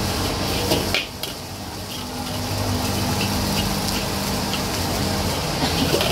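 Metal spatula scraping and clanking against a steel wok as fried rice is stir-fried and tossed, with sharp strikes about a second in and again near the end, over a steady background hiss.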